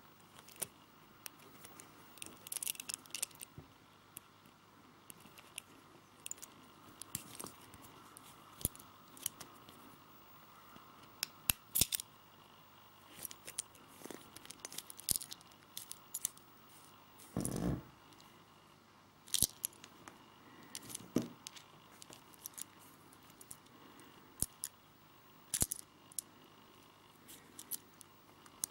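Handling noise from a liteXpress Mini-Palm 101 LED flashlight and its split-ring keyring being turned in the fingers: irregular sharp metallic clicks and light taps, with one brief louder rub just past the middle.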